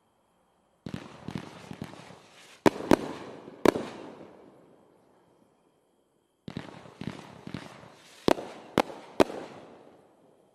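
A 500 g, 24-shot 'No Man's Land' consumer fireworks cake firing two volleys, about five seconds apart. Each volley is a quick run of softer pops followed by three loud, sharp bangs, then dies away.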